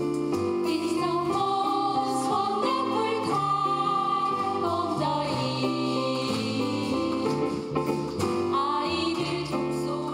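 Women's choir singing in harmony with piano accompaniment, the voices growing fuller about a second in.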